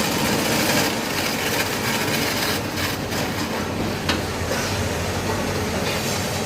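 Young-coconut peeling machine running steadily, a continuous mechanical noise over a low hum, with a few sharp ticks about three and four seconds in.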